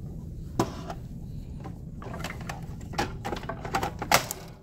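Sharp plastic clicks and knocks as gloved hands handle and fit parts inside a vending machine door: one click about half a second in, then a quick cluster of clicks and taps, the loudest near the end, over a low steady rumble.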